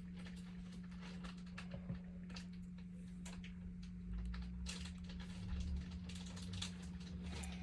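Scattered light clicks and taps at an irregular pace, over a steady low hum.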